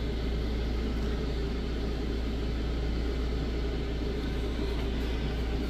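Steady low background hum, unchanging, with no distinct clicks or knocks.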